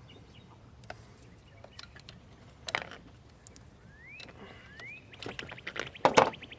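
Wire cutters snipping through corroded battery cable: a few sharp clicks, the loudest near the end. Two rising chirps and then a fast ticking trill sound behind them.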